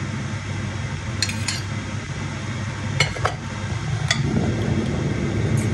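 A metal spoon clinking and scraping against a glass dish as sauce is spooned over roasted peppers: about half a dozen short sharp clinks, spread irregularly. A steady low hum runs underneath.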